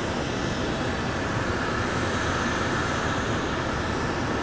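Jet engines of a Boeing 747-409 LCF Dreamlifter running at takeoff power as it rolls down the runway, heard across the airfield as a steady, even rush of engine noise.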